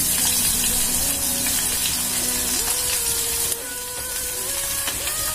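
Chopped onion and green chillies sizzling as they hit hot oil in a steel kadai. The sizzle eases a little about three and a half seconds in.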